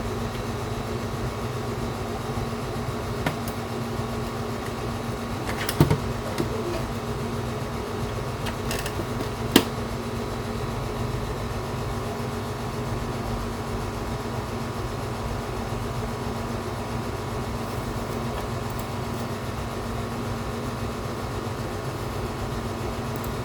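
Steady mechanical hum, fan-like, with a few sharp clicks: a small cluster about six seconds in and a single louder click near ten seconds.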